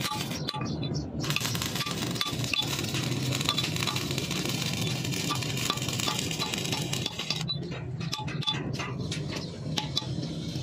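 Stick (shielded metal arc) welding arc on steel, crackling and hissing steadily over a low hum. It breaks off briefly about half a second in, then sputters and stops about seven and a half seconds in, as the weld run ends.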